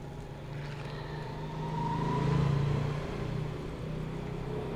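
A motor vehicle going past, its engine hum swelling to a peak about two seconds in and then fading.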